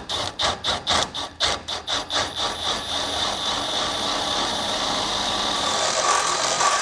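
Power drill with a larger bit boring out a pilot hole in a Jeep Wrangler's steel frame rail. It runs in short bursts about three a second at first, then runs steadily.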